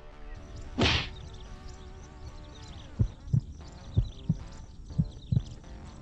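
Background music with a heartbeat sound effect: pairs of low thumps about once a second, starting about three seconds in. A brief, loud rushing burst comes about a second in.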